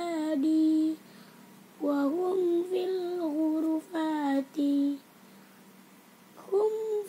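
A child reciting the Quran in a chanted, sing-song melody, as taught in the Ummi reading method: three held, melodic phrases with short pauses between them.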